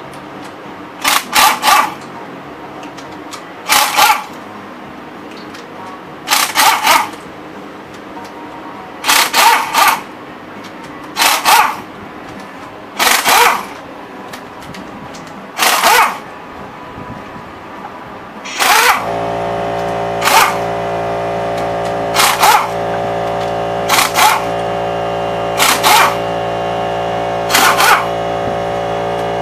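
Pneumatic impact wrench on an air hose firing in short bursts, about fifteen of them, as it runs fasteners off the rocker arms on a V8 cylinder head. Partway through, a steady machine hum with several tones starts and keeps going under the later bursts.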